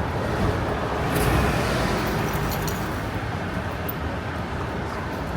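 City street traffic: cars passing with steady road noise, swelling as a vehicle goes by about a second in.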